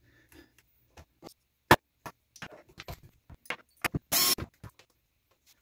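Small plastic and metal RC kit parts being handled on a workbench: a string of light clicks and knocks, with a sharp click about 1.7 seconds in and a brief scraping rattle just after 4 seconds.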